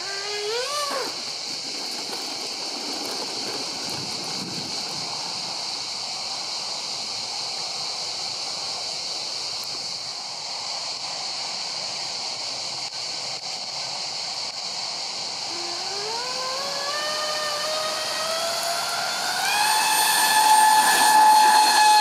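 Twin 5-blade electric ducted fans of a Freewing Su-35 model jet (2600kv motors on 6S) hiss steadily at low throttle, with a short rising whine at the start. From about two-thirds through they spool up for takeoff, a whine climbing steadily in pitch and growing louder. The fans run with cheap shaft adapters and mounting pads shaken loose, which the owner blames for their vibration and screech.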